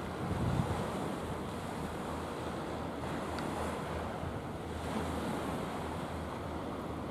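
Wind buffeting the microphone over a steady rush of wind and sea, with the strongest gusts in the first second.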